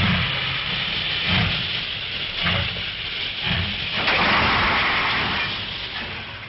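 Steam locomotive letting off a continuous hiss of steam, with a few slow, heavy chuffs about a second apart in the first half. The sound fades away near the end.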